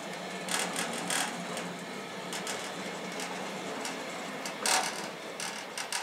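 Woodland Mills portable sawmill head rolling along its steel track, its wheels rumbling steadily with a scatter of clacks and knocks, the loudest about three-quarters of the way through.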